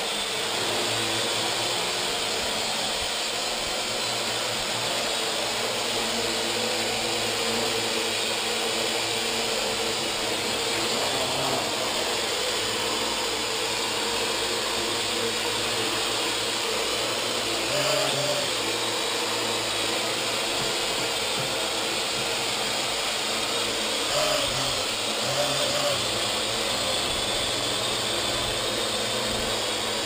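Parrot AR.Drone quadcopter hovering, its four electric motors and propellers giving a steady whir. The whir briefly shifts about eighteen seconds in and again around twenty-five seconds in.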